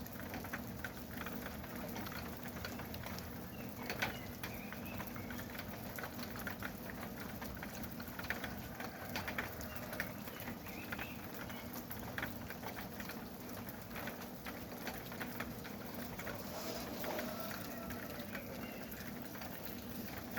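Steady rain falling in a pine forest, with many separate drops ticking and pattering. Birds call now and then through it, including a lower, longer call near the end.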